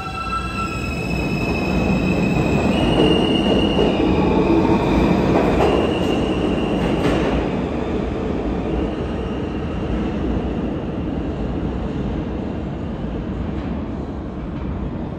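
New York City Subway R160 train accelerating out of an underground station. Its traction motors whine in tones that step upward in pitch, over the rumble of wheels on rail. The sound is loudest a few seconds in as the last cars pass, then fades slowly as the train runs off down the tunnel.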